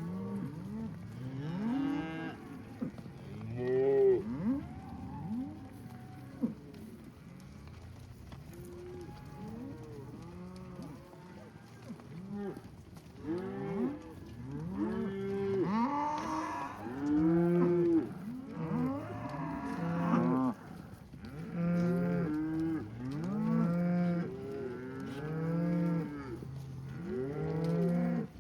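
A herd of beef cows mooing, many overlapping calls one after another, several at a time.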